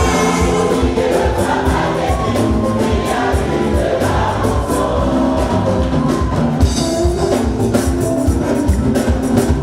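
Gospel choir singing over a band with a steady drum beat.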